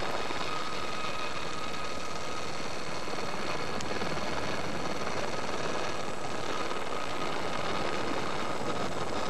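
250cc two-stroke motocross bikes racing, heard as a steady drone of engines through the hiss of an old VHS television recording.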